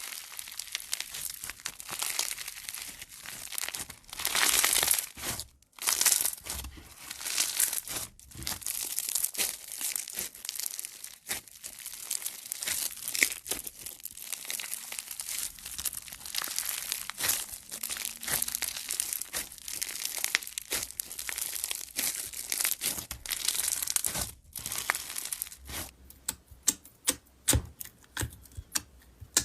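Crunchy slime being squeezed and pressed by hand, giving a dense crackling and popping. Near the end the crackle gives way to sharper, separate clicks.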